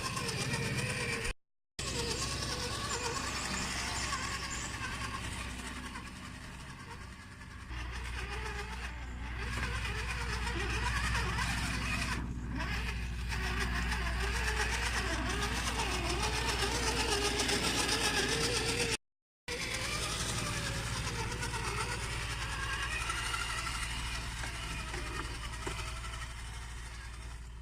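Electric motor and gear drivetrain of an Axial SCX10 II RC rock crawler whining as it drives, the pitch wavering with the throttle. The sound drops out twice for a moment.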